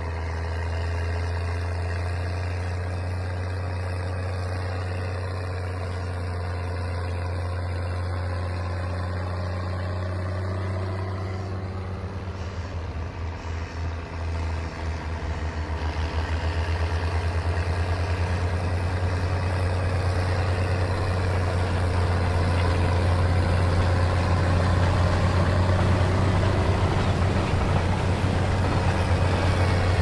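Case IH 1455 XL tractor's diesel engine running steadily under load while pulling a reversible plough and packer through the soil. It grows louder about halfway through.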